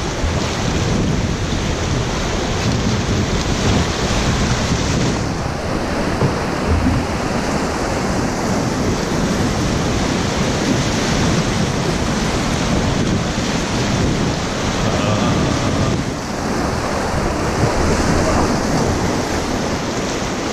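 Class III whitewater rapid rushing and splashing, a loud steady roar of churning river water.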